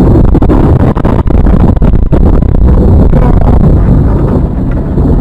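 Loud, heavy rumble of a vehicle on the move, with wind buffeting the microphone and scattered knocks and rattles.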